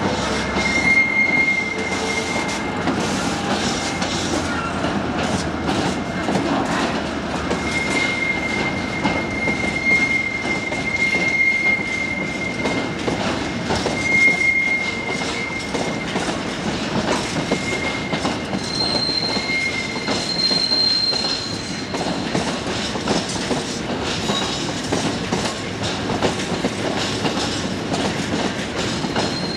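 Container wagons of a Class 66-hauled freight train rolling past: a steady rumble of wheels on rail with clicks over the rail joints, and a thin high-pitched wheel squeal that comes and goes several times.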